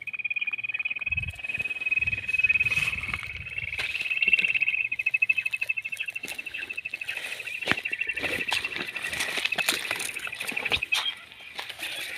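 A quail call: a high, rapidly pulsing trill held for about eleven seconds, then it stops. Dry stalks crackle and rustle throughout.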